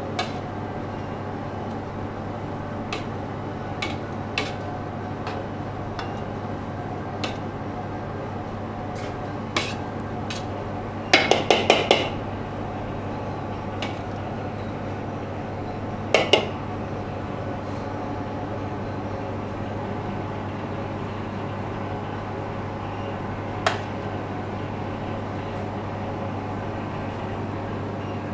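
Metal serving spoon clinking and scraping against a steel cooking pot while biryani is dished out, scattered single clinks and, near the middle, a quick run of about five loud clanks, then two more and a last one later on. A steady low hum runs underneath.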